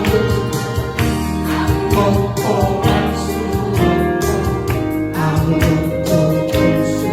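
Christian gospel song: singing over instrumental accompaniment with a steady beat.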